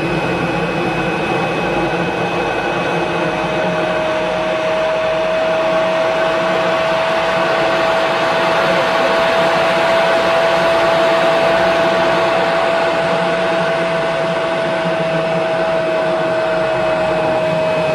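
Cockpit noise of an Aero L-29 Delfin jet trainer in flight: the steady rush of its single Motorlet M-701 turbojet and the airflow over the canopy. A steady whine joins in about three seconds in, and the noise grows a little louder toward the middle.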